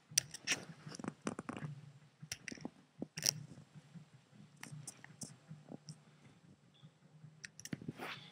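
Scattered soft clicks and rustles in a quiet room, over a steady low hum; a cluster comes in the first two seconds, another at about three seconds and a third near the end.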